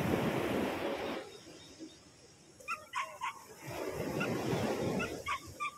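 A rush of noise for about the first second, then a dog's short high yips in small clusters about halfway through and again near the end, with a second rush of noise between them.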